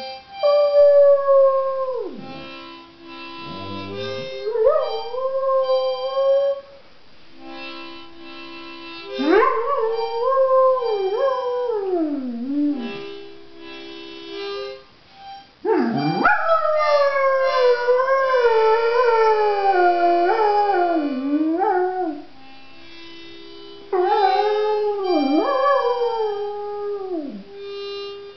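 Dog howling along to music: five long howls that slide up and down in pitch, the longest about halfway through, over steady held chords from an instrument.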